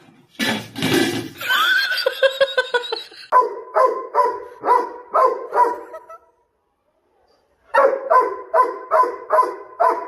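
A dog barking in quick, evenly spaced, high-pitched barks, about two or three a second. A short noisy burst and a fast run of yips come first. The barking breaks off about six seconds in and starts again a second and a half later.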